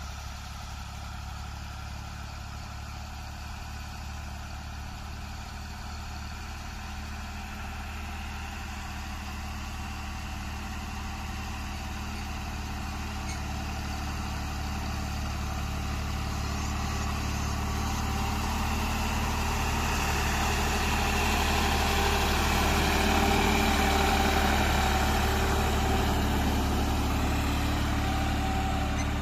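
New Holland 3630 TX Turbo Super tractor's diesel engine running steadily, pulling a laser land leveler, growing louder over most of the stretch and loudest about three-quarters of the way through.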